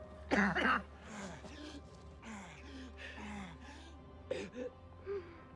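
A man sobbing without words: a sharp gasp about half a second in, then a run of short whimpering cries that fall in pitch, and more catching breaths near the end.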